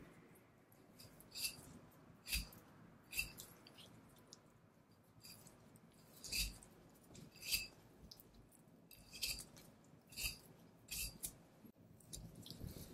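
A knife blade slicing fat and sinew off a Kuroge Wagyu knuckle (shintama). About a dozen short, crisp cutting strokes come at an uneven pace of roughly one a second.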